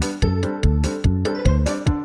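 Background music with a steady, bouncy beat of short struck notes, about four or five a second.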